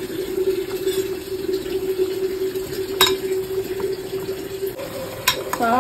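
Sliced onions and green chillies starting to fry in oil in a pan, a steady sizzling hiss over a steady hum, with a sharp click about three seconds in and another near the end.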